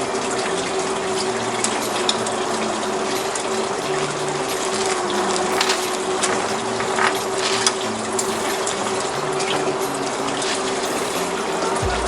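The boat's deck washdown water running steadily, a rush of water with a pump's steady hum, with scattered light clicks.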